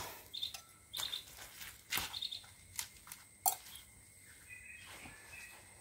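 Small birds chirping briefly several times in the background, with a few sharp clicks and knocks from handling a camping stove's case; the loudest click comes about three and a half seconds in.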